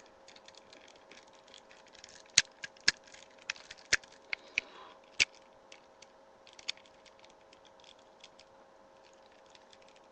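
A scattered run of sharp clicks and taps, most of them between about two and five seconds in, from the plastic parts of a transformable action figure being handled, over a faint steady hum.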